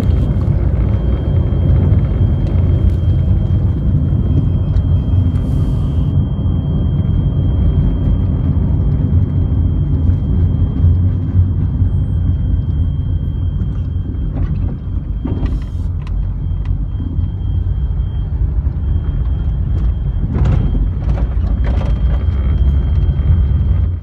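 Steady low rumble of a car driving, heard from inside the cabin: road and wind noise during a sandstorm, with a few brief knocks about 5, 15 and 21 seconds in.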